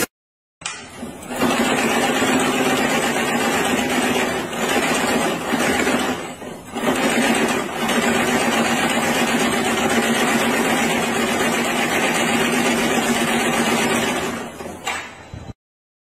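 Automatic brush tufting machine running at speed, rapidly punching tufts of bristles into a plastic brush block with a fast, even mechanical rhythm over a steady hum. It cuts off suddenly near the end.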